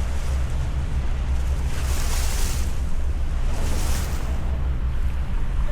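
Speedboat underway at speed: a steady low rumble of motor and wind buffeting the microphone, with two louder rushes of hissing water, about two seconds in and again near four seconds.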